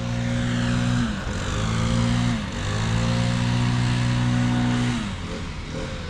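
An engine running at a steady speed, dropping briefly in pitch and picking back up twice, then winding down near the end.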